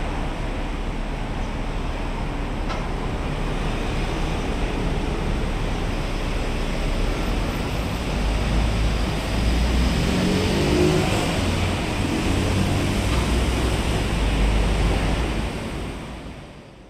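Road traffic on a multi-lane highway: a steady wash of tyre and engine noise with a low rumble. About halfway through it grows louder as heavy diesel vehicles, buses and a lorry, pass close below, then the sound fades out near the end.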